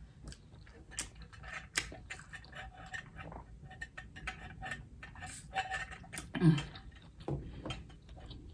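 Close-up eating sounds of a person chewing lobster tail: many small wet mouth clicks and smacks. A short "mm" of approval comes about six and a half seconds in.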